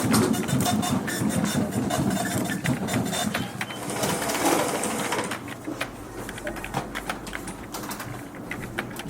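Office ambience: an office printing machine's mechanism running busily for about the first five seconds, then fading into scattered sharp keyboard clicks.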